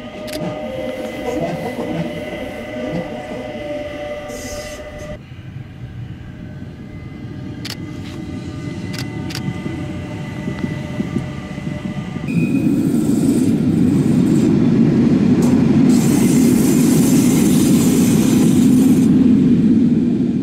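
NSTCM metre-gauge electric train running along the line: steady electric motor whine over the rumble of wheels on rail. About twelve seconds in it becomes much louder as the train runs close past.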